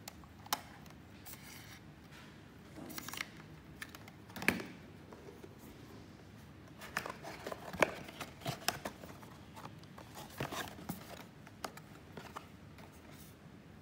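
Handling noise from a small cassette player, its cardboard box and a paper manual being picked up and turned over: scattered taps, light knocks and paper rustles, with a few sharper knocks near the middle.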